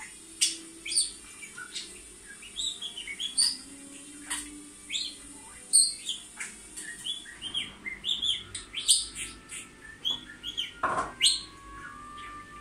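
Budgerigar warbling: a rapid, irregular chatter of short chirps, squeaks and clicks, over a steady background hum.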